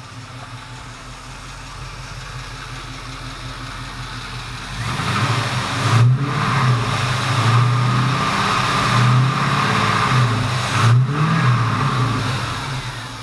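LS-swapped Nova's LQ4 6.0-litre V8 idling, then revved hard over and over from about five seconds in, dropping back near the end. The fuel-line noise is gone now that the original fuel pressure regulator is back on.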